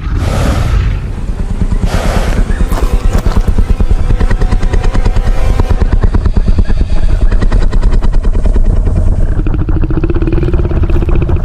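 Tyrannosaurus rex vocalization sound effect: a deep rumbling growl that pulses rapidly and continuously, with a steadier tone rising in over it near the end.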